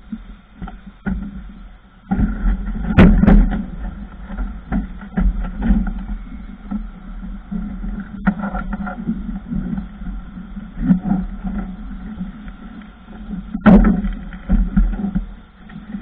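Irregular knocks and clunks of workers moving about and handling gear on a metal suspended work platform, over a low rumble; the loudest knocks come about three seconds in and near the end.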